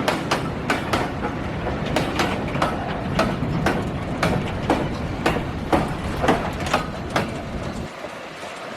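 A passing train, its wheels clacking over the rail joints a couple of times a second over a steady rumble. The clacks stop and the rumble drops away near the end as the train clears.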